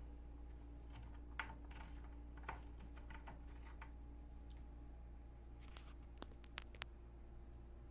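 Faint metal clicks and scrapes of a hex key turning a bolt into a pine board during flat-pack assembly, a light irregular series. Then a few sharper clicks about six seconds in.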